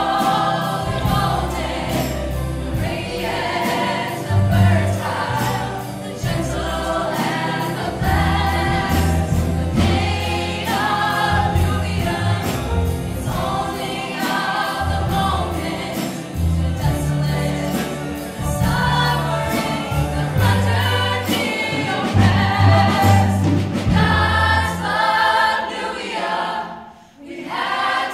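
A large stage-musical cast singing in chorus over an accompaniment with a steady beat and a bass line. Near the end the sound drops away for a moment, then the voices come back in.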